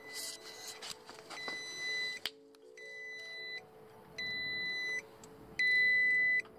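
Warning beeps from a jump starter's smart clamp module connected to a motorbike battery: five even, high electronic beeps, each just under a second long with short gaps, over a faint steady hum.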